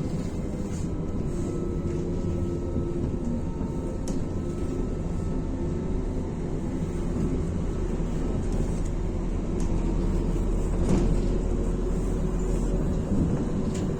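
MAZ-105 articulated city bus running, heard from inside the passenger cabin: a steady low engine drone with road and body rattle, growing slightly louder about ten seconds in.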